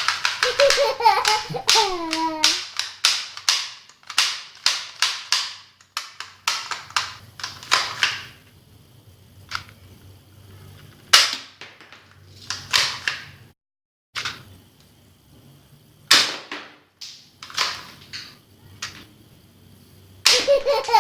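Toy guns firing: a string of sharp pops and snaps, some single and some in quick runs, with short pauses between.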